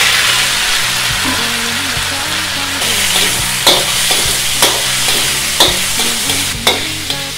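Diced chicken breast sizzling loudly in hot oil in a frying pan. From about three and a half seconds in, a spatula knocks against the pan about once a second as it is stirred.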